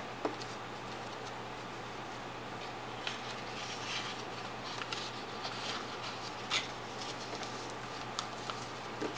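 A sheet of origami paper being folded and creased by hand against a tabletop: soft rustles and crinkles with scattered sharper taps, the loudest about six and a half seconds in, over a steady low hum.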